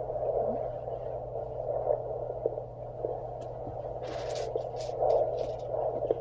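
Handheld fetal Doppler's speaker giving a steady whooshing, humming static as the probe searches the pregnant belly, picking up the mother's own pulse rather than the baby's heartbeat. Scratchy crackles about four seconds in as the probe moves over the gel.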